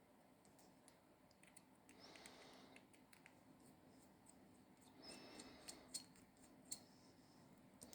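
Faint clicks and soft scraping of a precision Torx T3 screwdriver working the tiny back-cover screws of a smartwatch, with two longer scratchy stretches about two and five seconds in.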